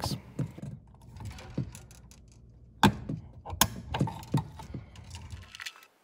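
Hands working in a metal electrical box around a snap-in armored-cable connector: two sharp metallic clicks less than a second apart near the middle, with lighter taps and knocks before and after.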